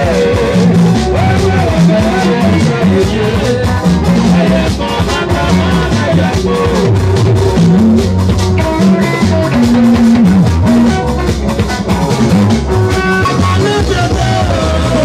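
Live band music through a PA: electric guitars and a drum kit with a steady beat, and a singer's voice over a busy bass line.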